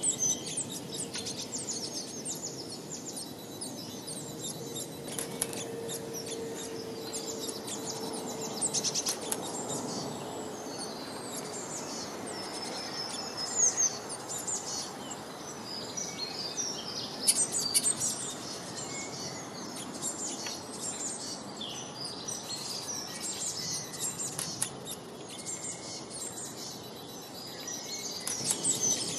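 Many small birds chirping and singing, with quick high-pitched calls and trills overlapping, over a steady background hiss.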